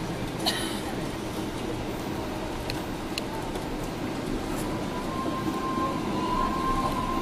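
Cabin noise of a Boeing 777-300ER rolling out on the runway just after landing: a steady rumble with a few light rattles, and a thin steady whine from about five seconds in.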